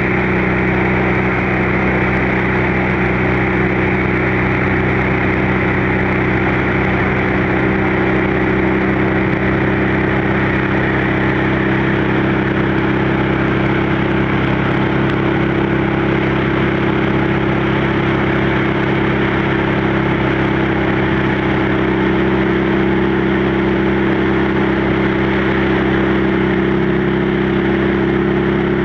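Motorcycle engine and exhaust running at a steady cruise, under a steady rush of wind on the microphone.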